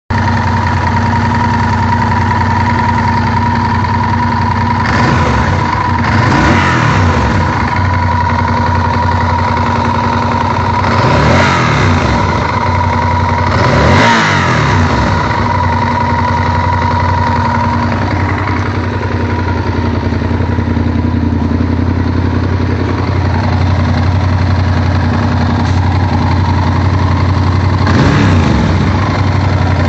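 Honda VTR1000F V-twin engine idling, with a knock that the owner traced to the cam chain tensioners. The throttle is blipped several times, so the revs rise and fall briefly: a few seconds in, twice near the middle, and again near the end.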